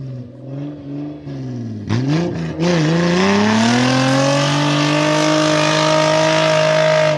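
A lifted Suzuki Jimny's engine on a deep-snow climb, at low revs at first. About two seconds in it revs up hard and holds high revs as the tyres spin through the snow, with a loud hiss over the engine.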